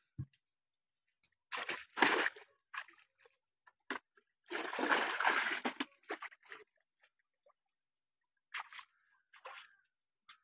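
Water splashing and sloshing as a plastic basin is dipped into shallow muddy water and filled, in irregular bursts with the biggest splashes about two seconds in and again around the middle.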